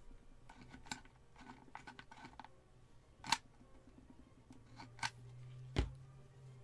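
Rustling and crinkling of a paper die-cut ornament and cotton wool being handled at a worktable, with a few sharp clicks and a louder low thump near the end.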